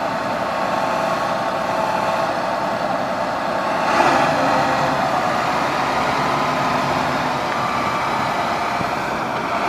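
John Deere motor grader's diesel engine running steadily as the machine moves, getting louder about four seconds in.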